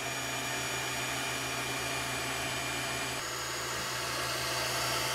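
3D printer running: a steady whir of fans and motors with a hum, its tone shifting slightly about three seconds in.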